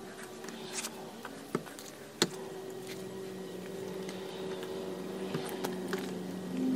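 Small brass rivet parts clicking as they are picked up and set onto leather, with one sharp click a little over two seconds in and a few fainter ones later, over a steady low hum.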